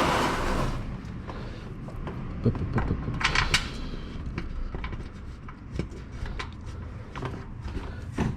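Scattered metallic clicks and knocks of a 10mm socket wrench and bolts being worked into an underbody protection plate, with a short louder scraping burst about three seconds in.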